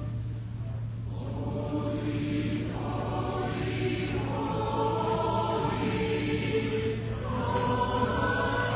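A choir singing slow, long-held chords. The sound dips at the start, then a new phrase swells in about a second in, and the chords shift every couple of seconds. A steady low hum runs underneath.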